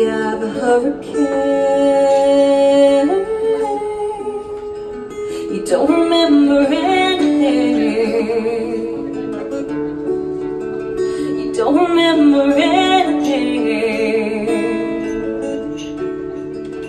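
A woman singing live while playing acoustic guitar: sung phrases with long held notes start about every six seconds over a steady guitar accompaniment.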